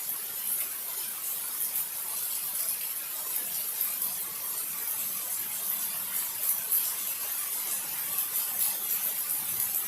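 Heavy rain falling in a steady hiss, with faint scattered ticks of drops.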